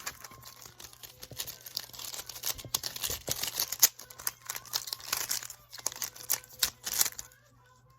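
Speed cube's plastic layers being twisted rapidly by hand to scramble it: a quick run of clicks and rattles that stops about seven seconds in.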